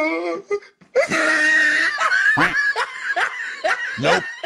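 A person laughing hard in repeated bursts, starting about a second in after a brief pause.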